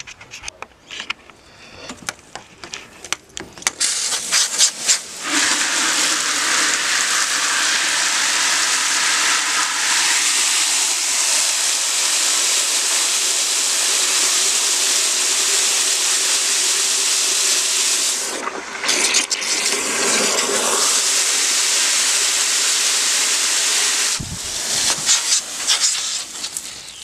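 Garden hose spray nozzle blasting water into a plastic bucket: a steady loud hiss that starts about four seconds in, breaks off for a moment around eighteen seconds and stops about twenty-four seconds in, followed by irregular splashing in the bucket.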